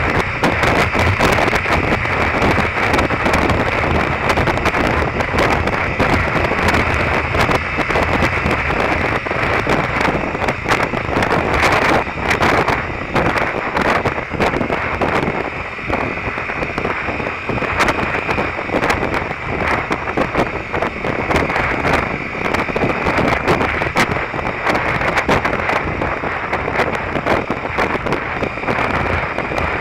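Steady wind buffeting and crackle on a motorcycle-mounted camera's microphone at road speed on a Derbi Terra Adventure, with the bike's engine and tyre noise running beneath.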